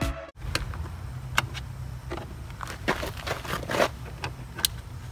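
Plastic door trim panel being pressed onto a truck door: a scattering of sharp clicks and knocks as the panel and its clips are pushed into place, over a steady low hum.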